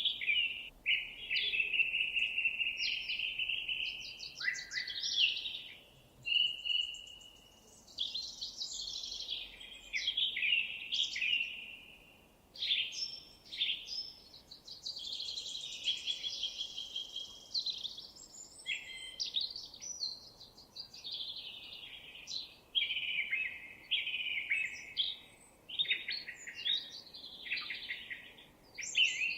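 Several songbirds singing, with a near-continuous mix of chirps, quick trills and short whistled phrases overlapping one another.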